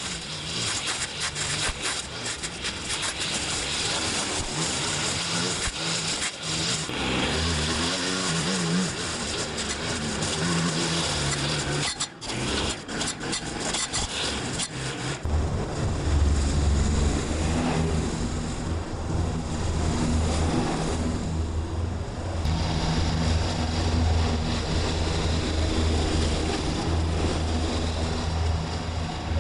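Petrol string trimmer running flat out, its line cutting through long grass, with a brief drop near the middle. About halfway it gives way to the steadier, lower-pitched engine of a Scag V-Ride stand-on mower running at full throttle.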